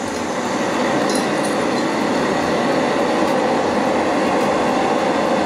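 Two canister gas camping stoves, a Jetboil Flash and a Jetboil MightyMo, burning at full flame with a loud, steady rush of gas. The noise grows a little louder over the first second as the flames are turned all the way up.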